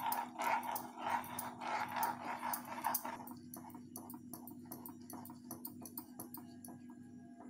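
A steel spoon stirring and scraping a thickening tomato and cornflour mixture against a nonstick pan, a rhythmic clacking of about three strokes a second. The strokes are louder for the first three seconds, then softer, over a steady low hum.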